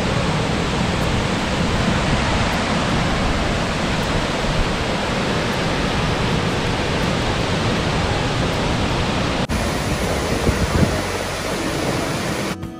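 Steady rush of Burney Falls, a tall waterfall pouring into its pool, mixed with water running over the rocks in the shallows.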